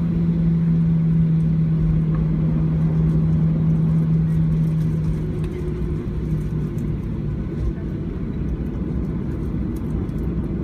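Cabin noise of a Boeing 737-800 taxiing: steady low rumble of its CFM56 engines at low thrust and the airframe rolling on the taxiway. A steady low hum runs beneath it and fades out about five seconds in.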